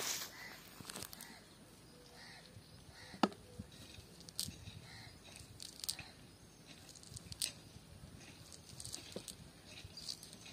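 Scattered rustles and clicks from a cast net being handled on grass, with one sharper click about three seconds in. Faint short chirps sound behind.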